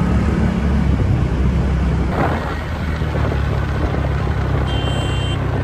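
Steady wind rumble on the microphone mixed with vehicle road noise from riding a scooter.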